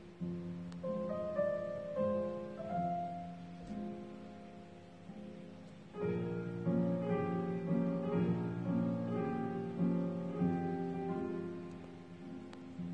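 Background piano music: single notes struck and fading, turning into fuller, louder chords about six seconds in.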